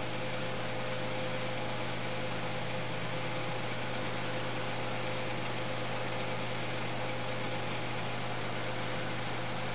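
Steady low hum with an even hiss and no change: workshop room tone, with no tool running.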